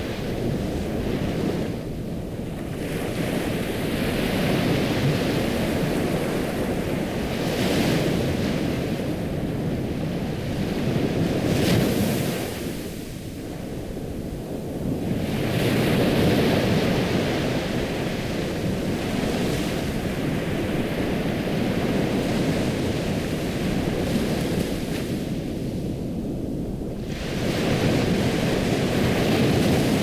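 Ocean waves, surf washing in and drawing back, swelling and ebbing in surges several seconds apart.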